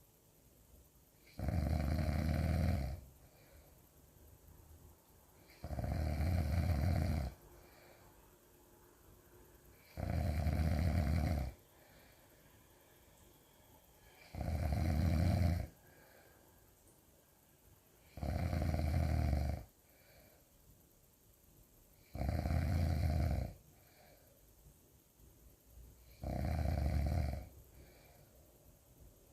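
Loud snoring in a slow, even rhythm: seven snores about four seconds apart, each lasting about a second and a half, with quiet pauses between.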